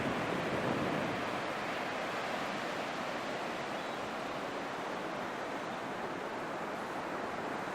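Ocean surf breaking on a beach: a steady wash of waves, a little louder in the first second or so.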